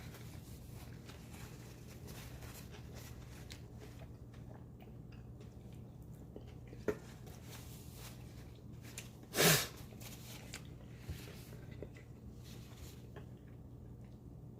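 Quiet chewing of spicy fried chicken over a steady low hum. There is a faint click about seven seconds in and one short, loud vocal sound about nine and a half seconds in.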